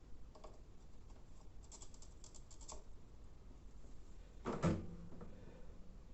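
Small quick clicks and taps from tools and the circuit board being handled during soldering, with one louder knock about four and a half seconds in.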